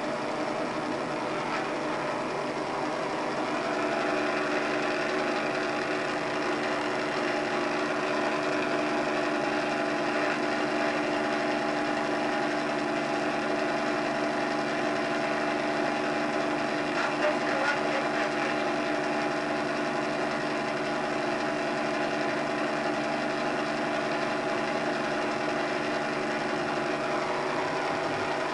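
Helicopter engine and rotor noise heard from inside the cabin: a steady drone of several hum tones over a wash of noise, growing slightly louder about four seconds in.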